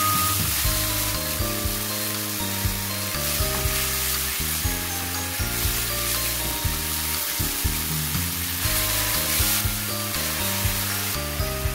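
Marinated beef strips sizzling in a hot nonstick wok as they are stirred and turned with a silicone spatula, over background music.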